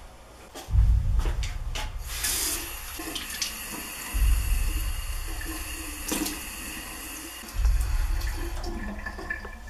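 Bathroom sink tap running steadily into the basin, starting about two seconds in. Under it, a deep low drone of background music swells three times, louder than the water.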